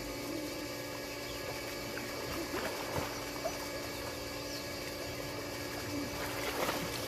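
Steady hum of an above-ground pool's filter pump, with swimmers splashing lightly in the water.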